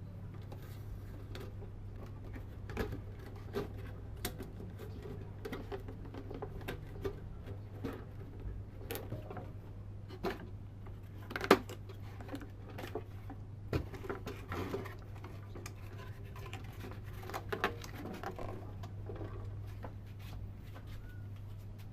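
Irregular light taps, clicks and scratching of small hard objects being handled and worked, over a steady low hum. One sharper knock comes about halfway through.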